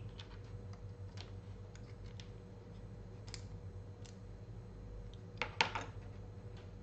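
Scattered light clicks and taps of small plastic model parts and tools being handled during gluing, with a brief cluster of sharper clicks about five and a half seconds in.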